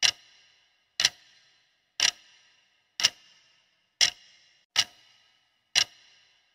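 Clock-tick sound effect counting down a quiz timer: sharp ticks about once a second, each with a brief ring, seven in all.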